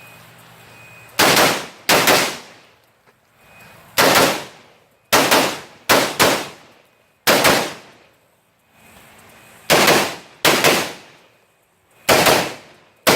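Rifle shots fired at close range in an irregular string, about ten in all, singly and in quick pairs. Each shot has a short echo tail.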